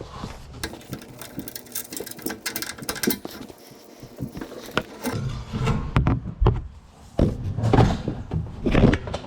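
A hand ratchet clicking rapidly for a couple of seconds as the last exhaust bolt is undone, followed by a scatter of separate knocks and clunks as the loose exhaust is handled.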